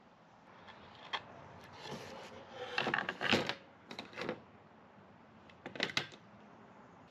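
Clicks and knocks of a metal folding shelf bracket being handled and folded: a single click about a second in, a burst of clatter around three seconds in, and two sharp clicks near six seconds.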